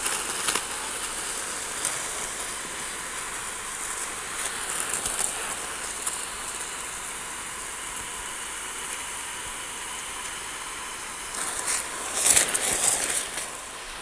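High-pressure water jet from a pressure-washer gun hissing steadily as it blasts across grass and bare soil, with a louder, rougher spell near the end.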